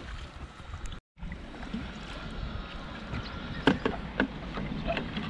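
Sea kayak paddling on calm water: paddle blades dipping and splashing, with a few sharp splashes or knocks about two-thirds of the way through. The sound cuts out completely for a moment about a second in.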